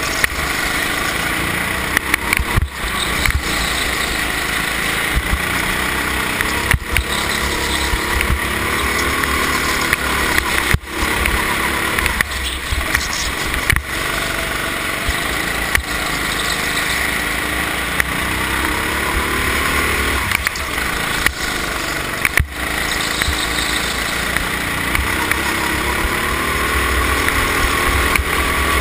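Go-kart engine heard close from an onboard camera, its revs rising and falling over and over as the kart brakes and accelerates through the corners, over a heavy low rumble.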